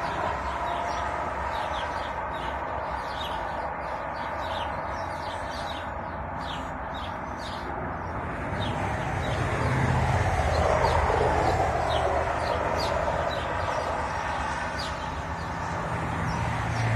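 Steady hum of road traffic, with a vehicle passing more loudly about ten seconds in. Short high chirps repeat all the way through.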